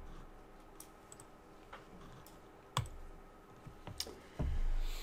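Computer keyboard and mouse clicks: a few separate sharp clicks about a second apart, then a low, dull bump near the end.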